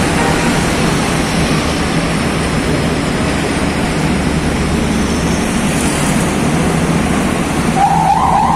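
Scania R580 heavy-haul tractor's V8 diesel pulling steadily as it passes, with the many tyres of its multi-axle trailer rolling on wet road. Near the end a short wavering siren wail comes in.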